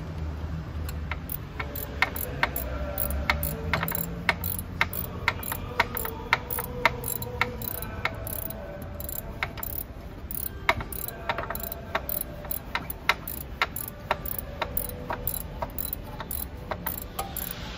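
Ratchet wrench clicking in short, irregular runs while ignition coil bolts are tightened.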